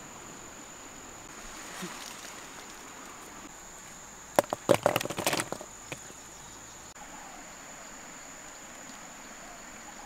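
A steady high-pitched insect drone, with a quick cluster of sharp clicks and rattles around the middle: okra pods being dropped into a woven wicker basket.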